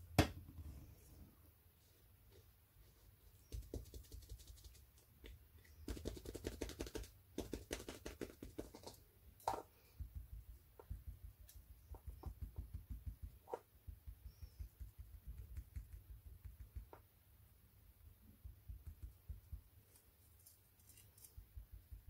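Round dauber being pounced repeatedly onto a plastic stencil: soft, rapid tapping in bursts, with one sharper knock right at the start.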